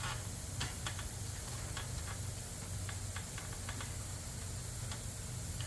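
Scattered light clicks and ticks of hands and a tool working a fuel line off a pressure washer's carburetor, over a steady low hum.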